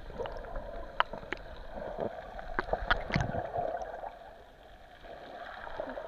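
Muffled sea water heard with the microphone under the surface: a low watery rush with scattered faint clicks and knocks, busiest around three seconds in and dying down for a moment after.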